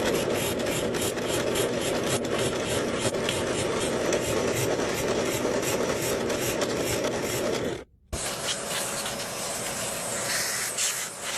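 Wood being rasped or sanded: a continuous rubbing, scraping noise that cuts out briefly about eight seconds in and then resumes.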